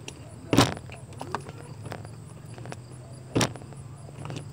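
Wet slime being stretched and worked by hand in a plastic bowl, with two sharp slaps, one under a second in and one about three and a half seconds in, and small squelching clicks between them, over a low steady hum.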